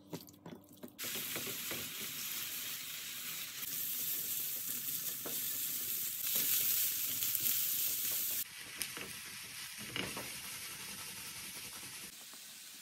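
Chicken strips, carrots and then noodles with vegetables sizzling in a hot frying pan as they are stir-fried and tossed with a silicone spatula, which scrapes against the pan. The sizzle starts about a second in after a few soft clicks and steps down in loudness twice, once past the middle and again near the end.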